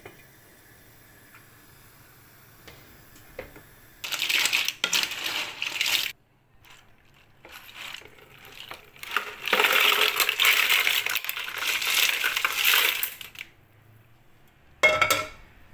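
Steamed mussels and clams clattering as they slide out of a pan into a plastic colander, with their cooking liquid pouring through, in two bouts, a short one and then a longer one. A single sharp clank with a brief ring comes near the end.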